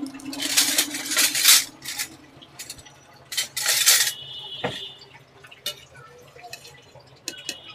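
Metal kitchen utensils clattering and clinking, with a brief metallic ring about four seconds in and again near the end.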